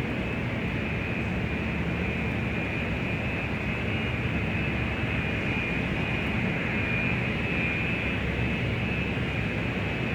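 Exterior ambience of a large airport: steady rumble and hiss of jet aircraft engines, with a constant high whine on top.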